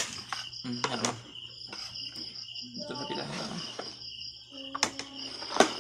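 Insects chirping in a steady pulsing chorus, with a few sharp clinks of spoons against dishes while rice is served.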